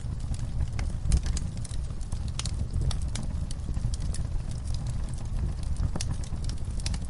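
Log fire crackling in a fireplace: irregular sharp pops and snaps of burning wood over a steady low rumble of the flames.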